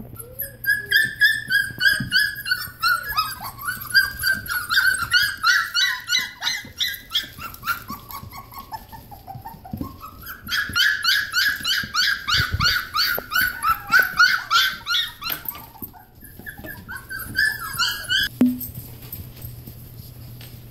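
Three-week-old goldendoodle puppies squealing and whining in a fast run of short, high-pitched cries, about four a second, as they crowd their mother to nurse. The cries sink lower in pitch around eight seconds in, rise again, and die away after about fifteen seconds, with a few more near the end.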